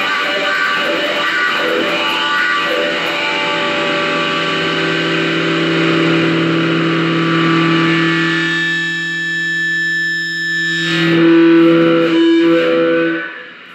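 Distorted electric guitar, a Gibson Les Paul Custom played through a Crybaby wah pedal into an Orange amplifier: a run of notes, then a low note held and left ringing for several seconds, a few last notes, and the sound cut off just before the end.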